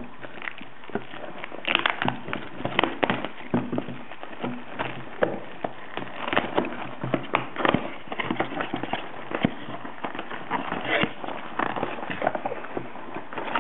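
Plastic shrink-wrap crinkling and tearing off a cardboard trading-card box as it is unwrapped and opened, with irregular sharp crackles throughout.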